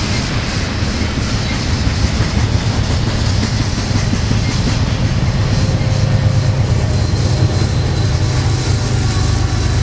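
Double-stack intermodal container train's well cars rolling past close by: a steady, loud rumble and rattle of steel wheels on rail, with a low drone strengthening in the second half.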